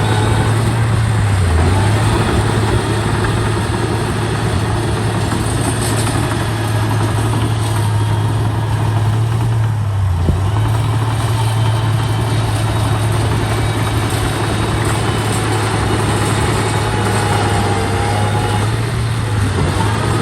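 Heavy diesel engine of a construction vehicle running steadily at a low, even note. The note sags briefly about a second and a half in, around the middle, and again near the end.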